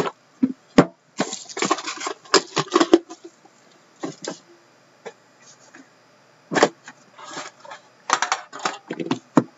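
Hockey card boxes being handled on a tabletop: a run of short knocks, taps and scrapes as the boxes are picked up, set down and opened, with quieter gaps between.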